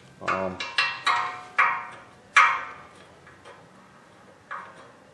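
Five or six sharp metallic clinks and taps at uneven intervals, each ringing briefly. They come from tools and bolts knocking against the steel rear wheel hub as the hub bolts are worked into place.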